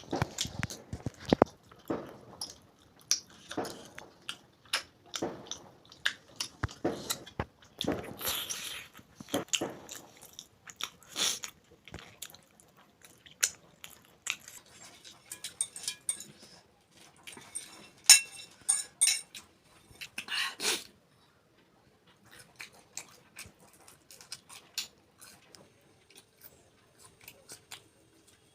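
Close-up eating sounds: a person chewing and biting food, with many irregular crunchy clicks and wet mouth noises. They are dense for the first twenty seconds, with the loudest bites near the end of that stretch, then sparser and quieter.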